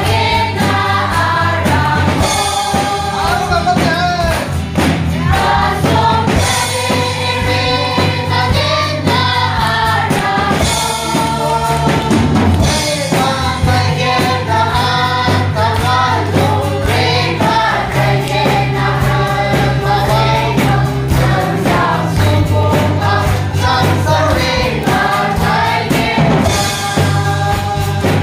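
A live church band playing a gospel song. A woman and a man sing into microphones over acoustic guitar, electric bass and a drum kit, with held bass notes under the melody throughout.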